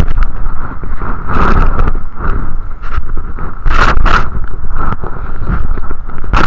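Underwater sound in shallow water: a constant low rumble of moving water with a steady hum over it, and scraping, crackling bursts as a hand digs into the sandy bottom close to the camera, loudest about four seconds in.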